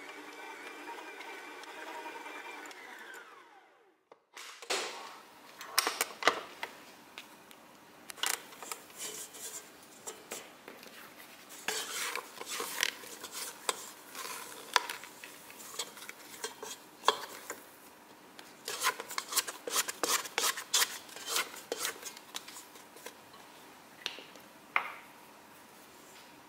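Stand mixer kneading stiff dough in a steel bowl. First the motor's steady hum drops in pitch and stops about three seconds in. After a short gap come irregular knocks and clatters as the dough and hook bang against the bowl.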